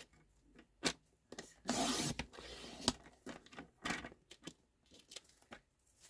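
Paper and craft tools handled on a desk: a sliding rub about two seconds in, among scattered light clicks and taps.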